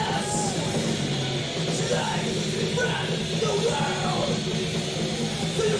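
Thrash metal band playing live: loud, heavily distorted electric guitars and drums, continuous and dense, with a wavering higher line over the top.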